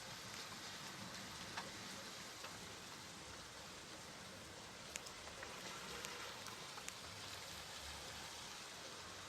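Steady rain falling, an even hiss with a few louder individual drops ticking now and then.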